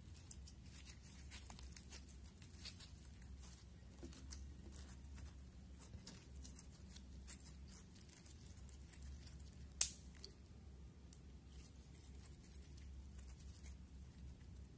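Clear slime packed with small styrofoam beads being stretched and squeezed by hand: a faint stream of crackles and sticky clicks as the beads rub and the slime pulls apart, with one sharper pop about ten seconds in.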